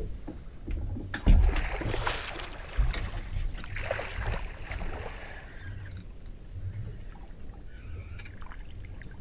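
Water lapping and splashing around a small boat at sea, over an uneven low rumble, with one sharp knock about a second in. The splashy hiss is strongest in the first half and then settles.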